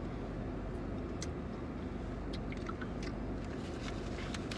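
People chewing chicken, with scattered wet mouth clicks and smacks, over a steady low hum inside a car.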